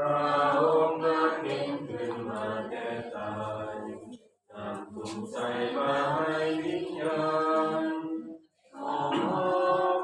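A group of voices singing a chant-like hymn unaccompanied, in long phrases with two short breaks.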